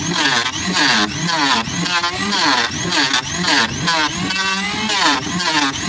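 Handheld electric power planer cutting along a hard kikar (acacia) boat frame, run in short passes. Its motor pitch dips and recovers about twice a second as each pass bites into the wood.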